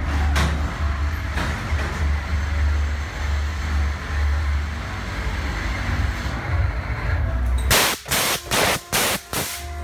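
Steady low rumble inside a fairground horror attraction. Near the end comes a quick run of about five short, loud hissing blasts.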